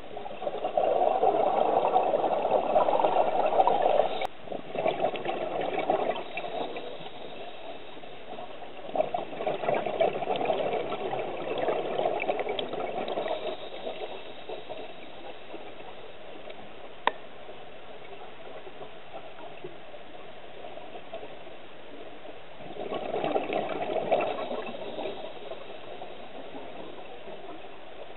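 Scuba regulator exhaust bubbles heard underwater, coming in bursts as the diver exhales, four times, with a steady low hiss between. One short sharp click stands alone in the long quiet stretch.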